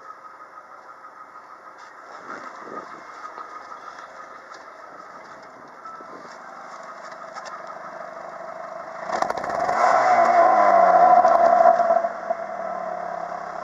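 Chrysler PT Cruiser's 2.4-litre 16-valve four-cylinder engine running, heard faintly at first and then loud at the tailpipe exhaust from about nine seconds in, where its note falls over about three seconds as the engine speed drops back.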